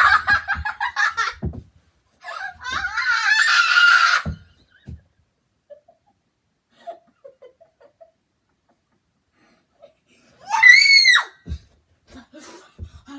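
A young girl laughing in quick bursts, then a long high-pitched squeal, and near the end one high shriek that rises and falls, followed by a few dull thumps.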